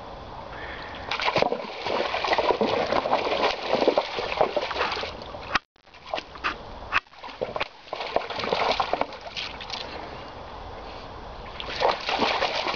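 Water splashing and sloshing as a Weimaraner wades through a shallow pool and plunges its head in after rocks, in several bouts with quieter stretches between. The sound cuts out briefly about halfway.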